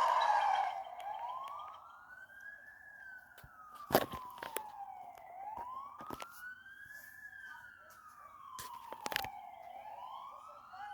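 Emergency vehicle siren in a slow wail, rising and falling about every four seconds. It is loud at first, then drops away and carries on fainter. A few sharp clicks come through, the loudest about four seconds in.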